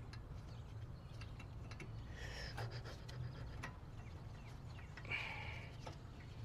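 Faint small metal clicks as a brake pad spring clip and guide pin are worked into place by hand, with two short breathy exhales about two and five seconds in, over a low steady hum.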